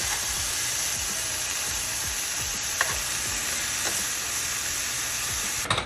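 Food sizzling steadily in a hot frying pan, with a faint tick or two, cutting off abruptly near the end.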